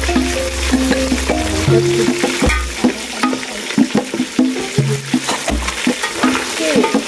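Food frying and sizzling in a pot while being stirred, with many short scraping clicks. Background music with held notes and a bass line plays over it.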